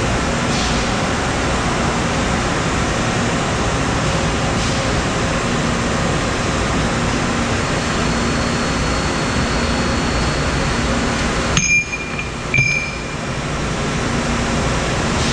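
Steady hum and noise of a machine shop floor with CNC machines running. About three-quarters of the way through come two short, bright metallic rings about a second apart.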